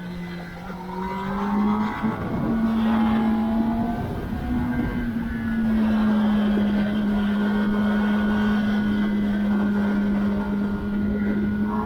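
A 2021 Kawasaki ZX-10R's inline-four engine under way. The revs climb about a second or two in, then settle into a steady drone at constant throttle.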